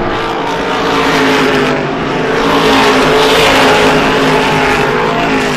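Several race cars at full throttle on a short oval track, their engines running at high revs together. The sound swells to its loudest about three and a half seconds in as the cars pass close by.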